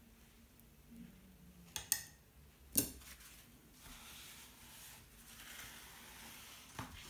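A few light clicks of handling, then the soft rustle of a folded paper tissue dabbing excess water from the edges of a wet watercolour sheet.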